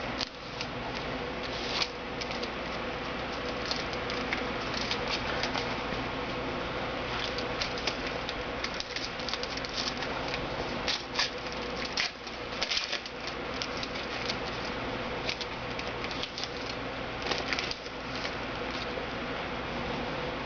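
Rustling and crinkling as trading cards and their packs are handled, in irregular short crackles over a steady background hiss.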